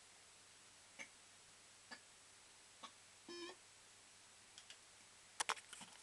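Barcrest Super Line Up fruit machine giving single sharp clicks about a second apart, a short electronic beep a little past the middle, then a quick run of louder clacks near the end, with near silence in between.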